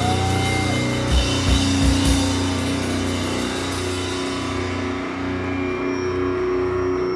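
Live rock band with electric guitars and a drum kit playing loud. A few drum hits land in the first two seconds, then the guitar chords ring on.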